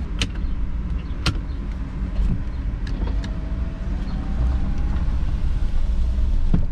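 Inside the cabin of a 2010 Ford Explorer: low engine and road rumble that grows louder as the truck pulls away. Two sharp clicks in the first second and a half come as the gear selector is moved.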